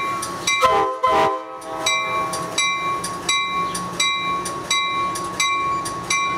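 Amtrak passenger train's bell ringing steadily, about one and a half strokes a second, with a short multi-note horn blast about a second in.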